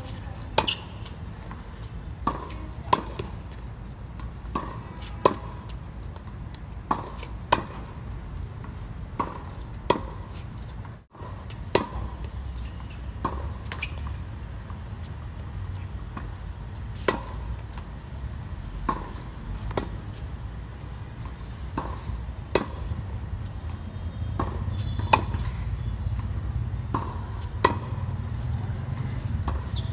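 Tennis balls struck on racket strings in a volley drill: sharp, ringing pops, roughly one a second, some close together in pairs. A steady low rumble sits underneath.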